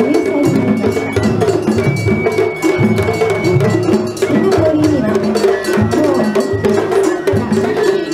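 Japanese festival hayashi music played on a float: a bamboo flute sounding long held high notes over steady drumming and clanging metal percussion.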